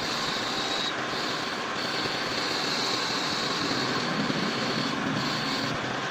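Metal lathe running, a steady machine noise with a high whine that drops out for under a second about a second in and again near the end.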